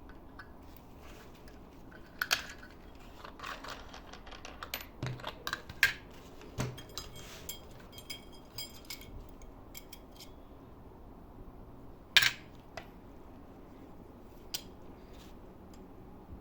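Scattered clicks and light metallic clinks of small objects being handled and set down, irregular, with the sharpest ones about two, six and twelve seconds in.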